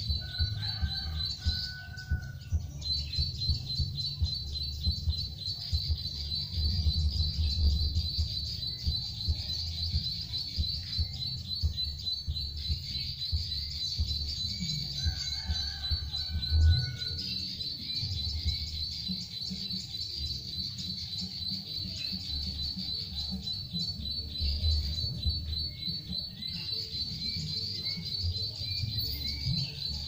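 Recorded ciblek sawah (prinia) call played as a trapping lure from an MP3 player: rapid high-pitched chirping that keeps going with only a brief break near the start. A low rumble runs underneath.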